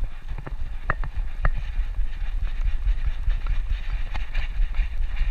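Jostling and rumble of a GoPro Hero 4 Black strapped to a walking dog, with a few sharp clicks about half a second apart in the first second and a half.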